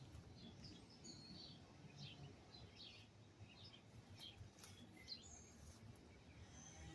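Faint chirps of small birds: many short, high calls scattered throughout over a quiet outdoor background.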